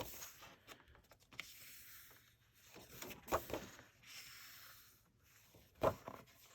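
Paper pages of a colouring book being turned by hand: a few short rustles and flips, the sharpest one near the end.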